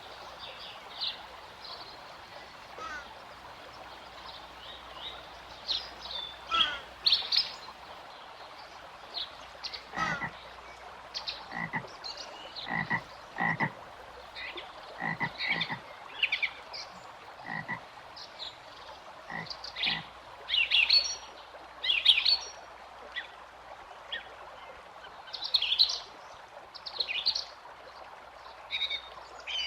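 Frogs croaking: many short, irregular calls, some overlapping, over a steady faint background hiss. The calls grow busier from about a third of the way in.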